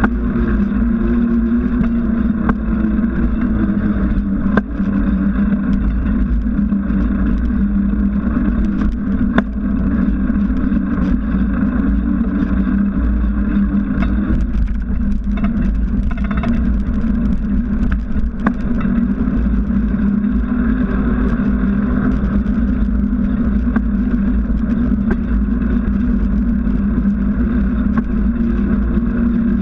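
Steady ride noise from a camera mounted on a moving mountain bike: the knobby tyre humming on asphalt with wind rush and a low rumble. About halfway through, the sound turns rougher and rattly for a few seconds as the bike crosses paving stones, then evens out again.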